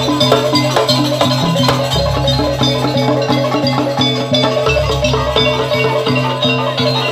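Live jaranan gamelan music: metallophones hammer out a repeating melody over drums. A deep low note swells twice, about three seconds apart.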